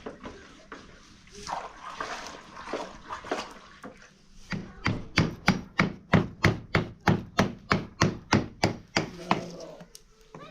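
Irregular scraping and handling noise, then from about halfway through a rapid, even run of sharp knocks, about four a second, which stops shortly before the end.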